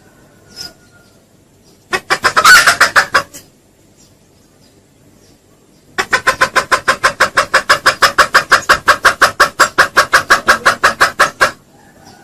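Junglefowl clucking in rapid, evenly spaced pulses, used as a lure call to draw wild junglefowl. There is a short quick burst about two seconds in, then a long steady run of about seven clucks a second from about halfway until near the end.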